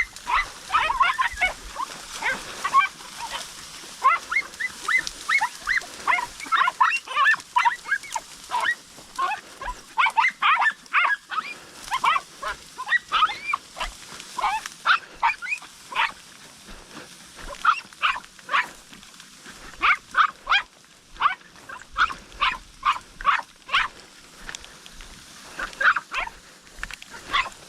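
Podenco hunting dogs yelping in quick, high-pitched runs, giving tongue on the trail of a rabbit.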